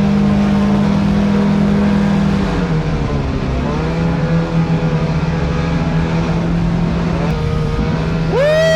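Small boat's motor running steadily over water and wind rumble, its pitch easing down a little about two and a half seconds in. Near the end comes a brief series of quick high swooping tones.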